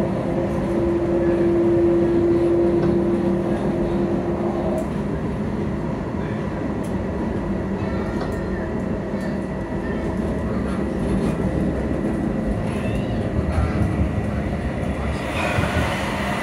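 Running noise heard from inside a moving CAF Urbos 3 tram: a steady rumble of wheels and traction equipment, with a steady electric motor whine for the first few seconds. The rolling noise grows rougher, with a few clicks, near the end.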